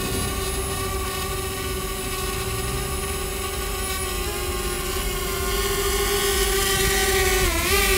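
DJI Spark quadcopter's propellers whining at a steady pitch in flight. The pitch dips briefly and recovers near the end.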